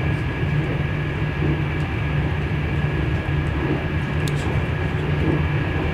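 Steady low rumble of a moving train, heard from inside the carriage.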